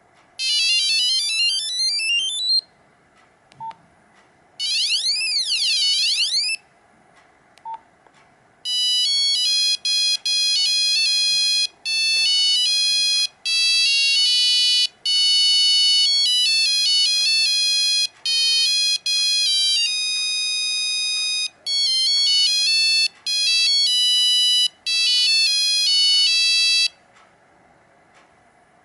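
Nokia 5125 mobile phone playing its built-in monophonic ringtones one after another. First comes a short rising sweep, then a warbling up-and-down sweep about four seconds in, then from about eight seconds a long melody of quick beeping notes, with brief faint beeps in the gaps between tones.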